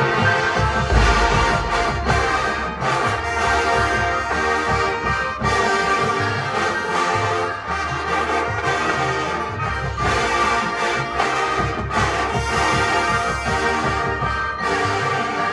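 College marching band playing live: brass holding full chords over a drumline and front ensemble, with regular drum hits and a heavy low hit about a second in.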